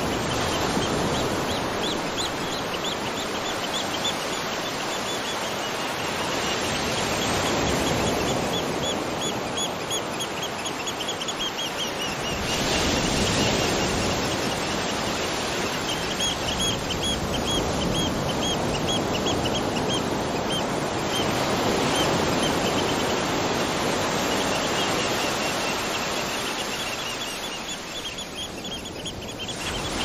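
Steady rushing water from rain and a waterfall or creek. Over it, high chirps repeat rapidly in runs several seconds long from a small calling animal.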